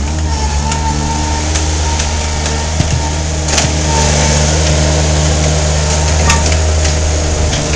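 Mini skid steer's engine running steadily under load, with a few sharp knocks about three and a half seconds and six seconds in.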